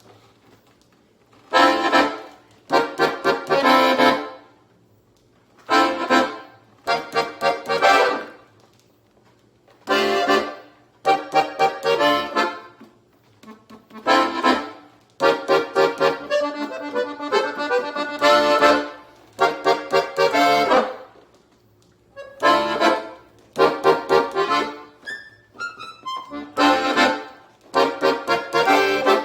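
Sanfona (button/piano accordion) playing an instrumental passage in short phrases of a few seconds each, separated by brief near-silent pauses.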